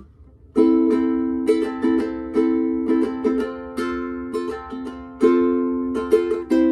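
Instrumental music: chords strummed on a plucked string instrument, starting about half a second in, with a new strum every half second or so in an uneven rhythm.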